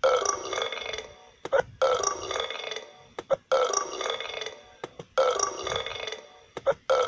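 Cartoon penguin burps: a short sharp sound, then a long burp of about a second and a half. The pair repeats the same way about every 1.7 seconds, four times over.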